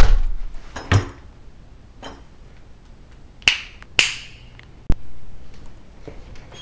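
Footsteps and knocks on wooden stairs: a handful of separate knocks and taps spaced irregularly, about a second apart. The heaviest comes at the very start, with two sharper clicking steps around the middle and a short click a second later.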